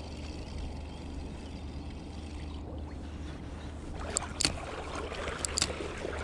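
Steady low wind rumble and lapping water, then, in the last two seconds, several sharp clicks and ticks from a Shimano Stradic spinning reel handled just after a cast.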